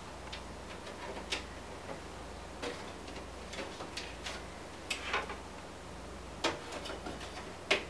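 Scattered, irregular small clicks and taps as rubber anti-vibration grommets are handled and pushed into the fan-mount holes of a PC case, over a faint steady low hum.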